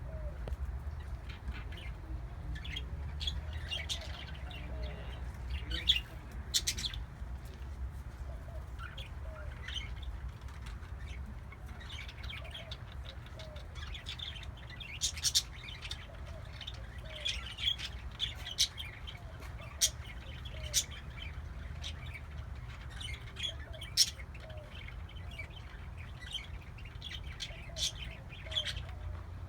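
Pet parakeets (budgerigars) chirping and squeaking in quick, irregular bursts, with a few sharper, louder squawks, over a steady low hum.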